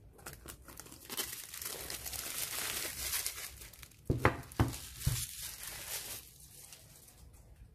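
Thin plastic shrink-wrap film crinkling and tearing as it is peeled off a cardboard phone box, then a few sharp knocks about four to five seconds in.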